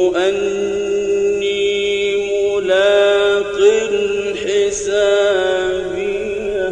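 A male Quran reciter chanting in a slow, melodic style, drawing out long held notes with small pitch bends and ornaments.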